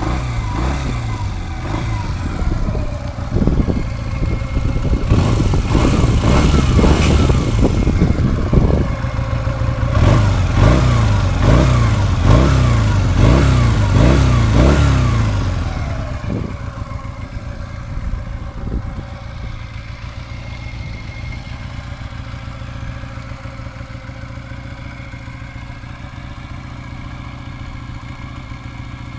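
Honda CM125 Custom's air-cooled parallel-twin engine through its stock exhaust, revved in a run of quick throttle blips that each rise and fall. About sixteen seconds in it settles to a steady idle.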